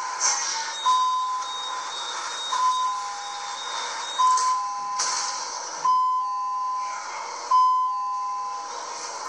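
Metro train door-closing warning: an electronic two-note beep, high then low, repeated about every one and a half seconds. There is a clunk about five seconds in.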